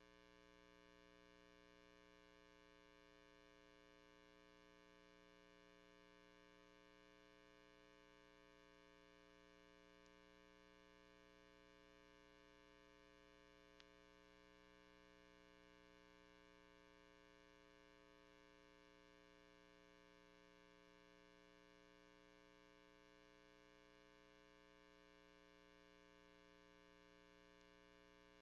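Near silence: a faint, steady electrical hum with many overtones, unchanging throughout, with one tiny click about halfway through.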